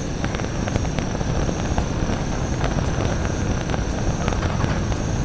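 SOTO ST-330 gas stove burner running while a small electric fan blows on its flame: a steady low rumble of burning gas and moving air, with faint scattered ticks.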